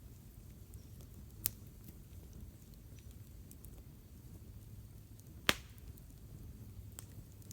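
Wood campfire burning, with a few sharp crackling pops: one about a second and a half in, the loudest near five and a half seconds, and a smaller one near the end.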